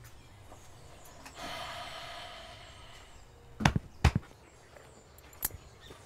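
A drawn-out pitched call, then two sharp knocks about half a second apart and a third about a second and a half later.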